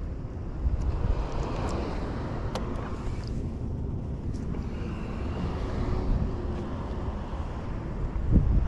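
Steady low rumble of wind buffeting the microphone, with a few faint clicks as hands handle a small fish.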